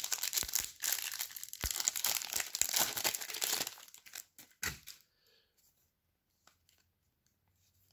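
The foil wrapper of a 2024 Topps Star Wars Chrome card pack being torn open and crinkled for about four seconds, followed by one sharp click about five seconds in.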